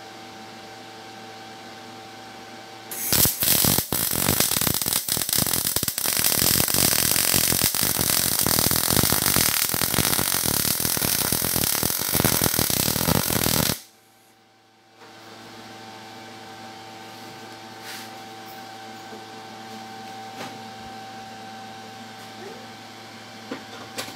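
MIG/MAG welding arc on 1/8-inch steel plate, set to about 19 volts and 130 amps, crackling loudly and steadily for about ten seconds as a horizontal fillet weld is run, starting about three seconds in and cutting off abruptly. A steady hum with a few faint clicks is heard before and after the weld.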